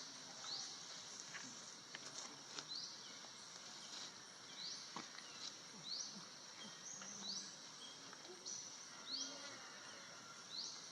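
Outdoor ambience: a short, high chirp rising in pitch repeats roughly once a second over a steady high hiss, with a few scattered clicks.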